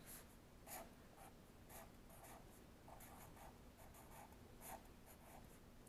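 Marker pen writing on paper: faint, short strokes of the tip across the sheet, coming at an uneven pace as letters are formed.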